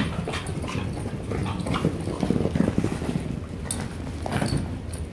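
Belgian Malinois playing with a ball on artificial turf: paws scuffling and thudding, with scattered knocks.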